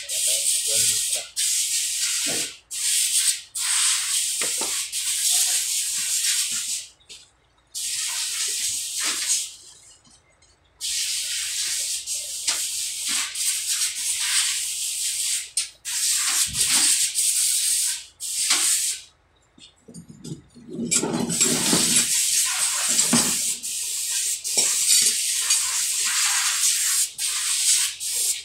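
Repeated hissing blasts, like air or spray jetting out, each lasting one to several seconds with short silent gaps between, and some rougher handling noise underneath about two thirds of the way through.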